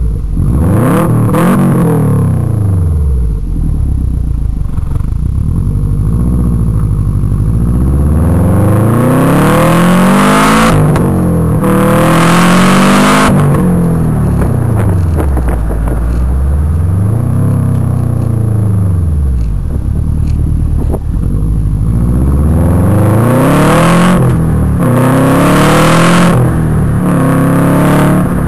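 Exhaust of a 2006 Subaru Impreza WRX STi's turbocharged flat-four, running through an Invidia downpipe and Greddy EVO2 exhaust and heard right at the tailpipe while driving. The revs climb and drop over and over, with the hardest, loudest pulls about ten to thirteen seconds in and again near the end.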